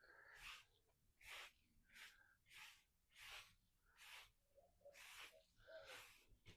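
Broom sweeping with short, faint hissing strokes, about one every three quarters of a second, roughly nine in all.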